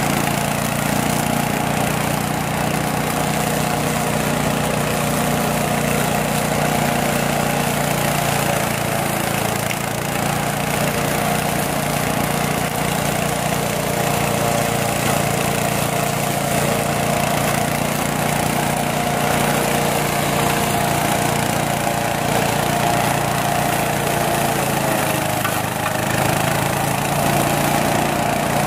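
Petrol engine of a remote-controlled oil-electric hybrid mower running steadily as the mower cuts through tall grass and weeds.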